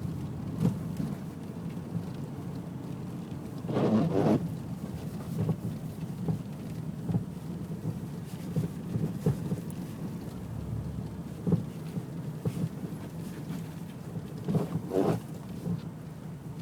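Mazda Millenia's right-side suspension knocking irregularly over bumps, a dozen or so sharp knocks over a steady road rumble, the loudest about four seconds in and near the end. The cause is unknown: stabilizer links, bushings and ball joints have already been replaced and the shock absorber is in good condition.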